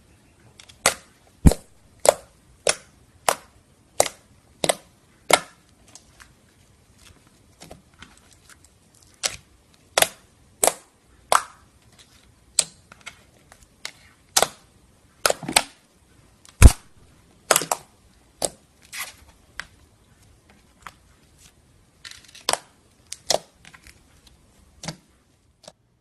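Slime being pressed and worked by hand, giving a long run of sharp popping clicks as trapped air bursts. The pops come evenly, about every two-thirds of a second, for the first few seconds, then fall irregular.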